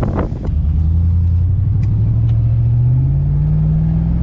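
Pickup truck engine accelerating, its note rising slowly and steadily.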